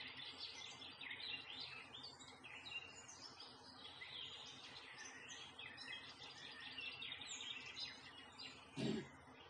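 Several songbirds singing and chirping in a dense, continuous chorus of short, high twittering phrases. A short, low thump sounds once, just before the end.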